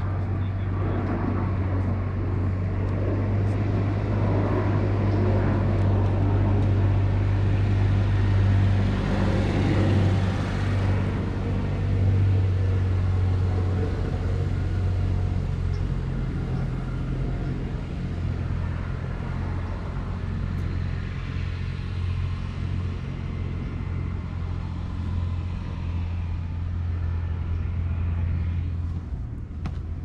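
A steady low engine drone with a rushing noise over it, swelling in the first half, loudest about ten to twelve seconds in, then easing off.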